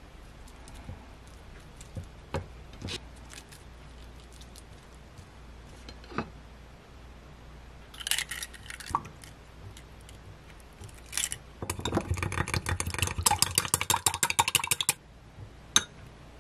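A few soft taps of handling, then an egg cracked over a glass mug about eight seconds in. Near the end come about three seconds of rapid clinking as chopsticks beat the egg against the glass.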